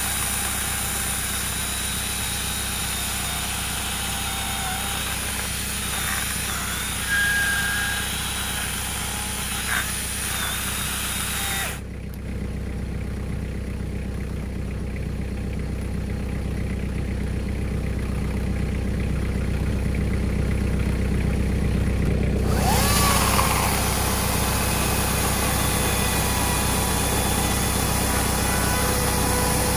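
An angle grinder fitted with a chainsaw bar-and-chain attachment running steadily as it cuts into the limbs of a fallen tree.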